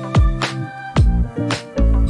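Background music with a steady beat: drum hits about twice a second over bass notes and held chords.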